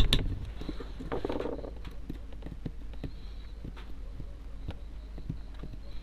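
Small clicks and taps of a power bank's circuit board and tools being handled on a workbench, with one sharp click at the start and faint scattered ticks after it, over a steady low electrical hum.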